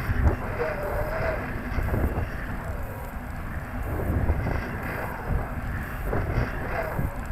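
Wind buffeting the microphone of a camera carried in a weather balloon's payload box during the ascent, a steady low rumble. A faint wavering tone rises out of it about a second in and again near the end.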